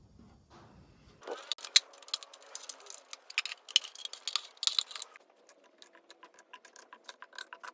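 Irregular metal clicks and light clinks of hand tools and engine parts being handled, some with a short ring, starting about a second in.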